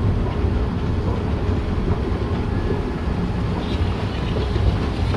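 A steady low rumble with an even hiss above it, holding at much the same level throughout.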